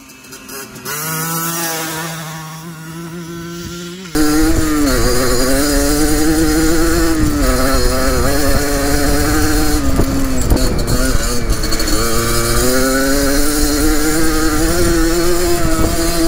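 Two-stroke dirt bike engine, first heard from a distance with its pitch rising as it accelerates, then, about four seconds in, suddenly loud and close, revving high and rising and falling as the rider opens and closes the throttle across the field.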